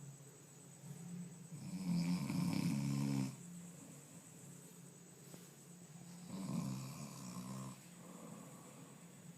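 A sleeping person snoring loudly, two long rattling snores about five seconds apart, the first the louder, with quiet breathing between them.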